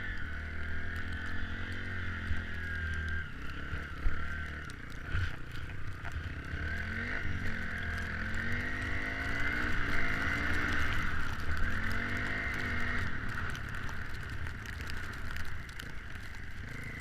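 Small off-road vehicle engine revving up and down as it is ridden, its pitch rising and falling repeatedly over a steady low rumble.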